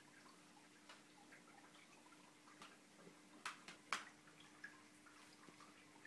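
Near silence: quiet room tone with a faint steady hum and a couple of small sharp clicks about three and a half to four seconds in.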